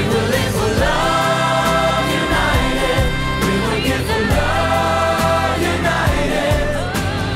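Pop ballad sung by a group of voices in chorus over a band backing track, with two long held notes, about a second in and again just past the middle.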